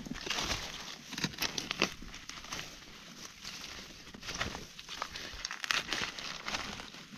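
Dry leaf litter rustling and crunching in irregular crisp crackles.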